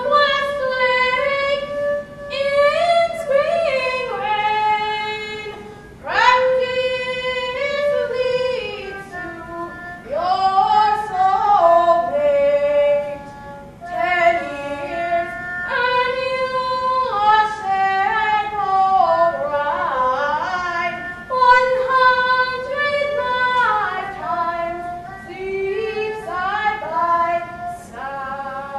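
Peking opera (jingju) music: a high, nasal melody of long held notes that slide up and down between pitches, in phrases of a second or two.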